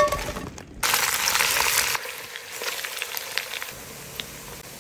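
Beef fat scraps dropped into a hot pot with a knock, then a loud sizzle for about a second. This is followed by a quieter steady bubbling and crackling as the fat renders out of the pieces.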